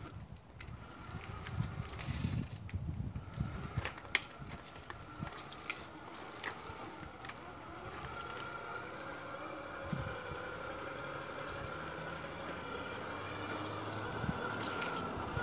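Radio-controlled scale semi truck driving while pulling a loaded lowboy trailer: a steady motor-and-gear whine that slowly grows louder, with a few sharp clicks in the first six seconds.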